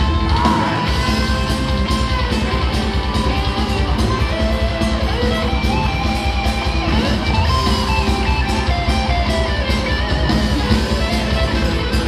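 Symphonic metal band playing live: electric guitars over a fast, steady drumbeat, with bending melodic lines on top, in a dense, loud mix.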